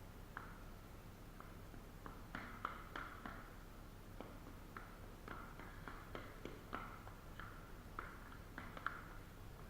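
Setting-type joint compound being stirred by hand in a mud pan: light, irregular taps and clicks of the mixing tool against the pan, about two a second.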